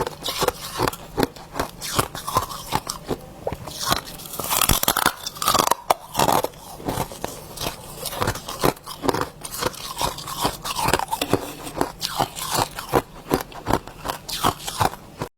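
Soft freezer frost crunching close up: a dense run of quick, crisp crunches, several a second, with no pause.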